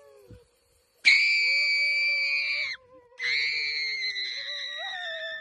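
Two long, high-pitched screams from a person's voice. The first starts about a second in, and the second follows after a short break.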